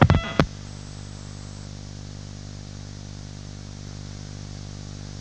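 Steady hiss and electrical hum on the launch commentary's audio line between transmissions. A couple of sharp clicks sound right at the start as the previous call cuts off.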